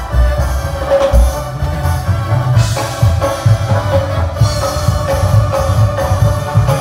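A live band plays loud amplified music through a stage PA, with a drum kit and a heavy, pulsing bass line.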